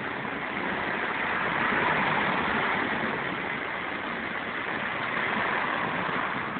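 Pneumatic impact wrench running continuously on a car wheel's lug bolt, a steady mechanical noise that is a little louder about two seconds in.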